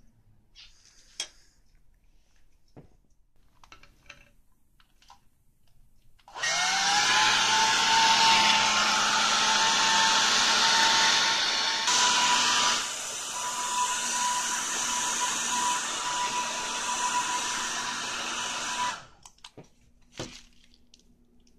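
Handheld hair dryer switched on, its motor whine rising quickly and then holding steady under the rush of air. It runs about twelve seconds, a little quieter in the second half, and then cuts off. A few light taps come before it starts and one after it stops.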